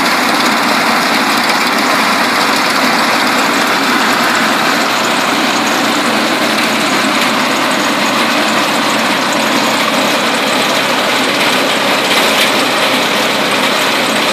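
Small garden branch chipper running, a loud, steady mechanical noise with no breaks.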